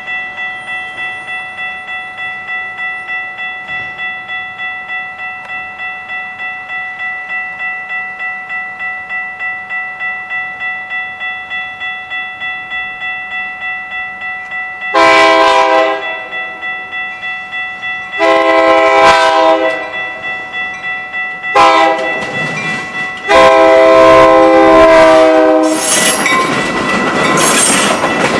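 A railroad crossing bell rings steadily, about two strokes a second, as a Metra commuter train approaches and sounds its horn in the standard grade-crossing pattern: long, long, short, long, with the last blast held about three seconds. Near the end the bilevel cars pass close by with a loud rush of wheel and rail noise.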